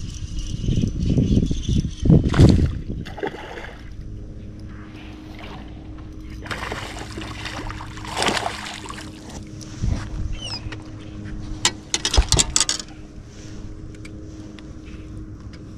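Sounds aboard a fishing boat: loud rumbling handling noise for the first few seconds, then a steady low hum with water splashing and a cluster of sharp knocks near the end.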